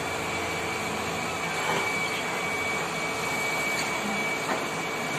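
Heavy diesel engine running steadily, with a constant high-pitched whine over it and a few faint clicks.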